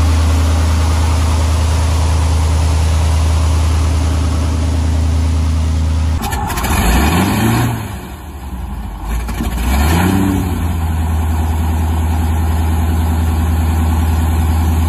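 Piston engine and propeller of a single-engine bush plane running with a steady low drone. After a cut about six seconds in, the engine revs up and back down twice.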